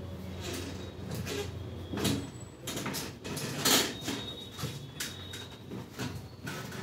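Irregular knocks and scuffs of people moving about a classroom. A low steady hum stops about two seconds in.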